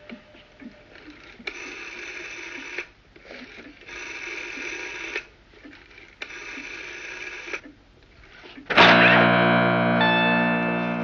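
Three evenly spaced bursts of a ringing, buzzing tone, each a little over a second long. About 9 seconds in, a loud distorted electric guitar chord strikes and rings out as the theme music begins.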